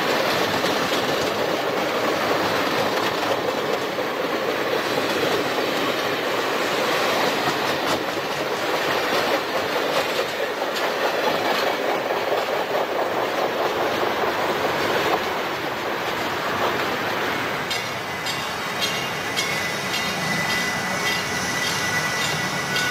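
Amtrak passenger cars rolling past close by, a loud rumble of wheels clacking over the rail joints. The sound falls away after about 15 seconds as the end of the train passes. After that comes a quieter rumble with a thin high tone.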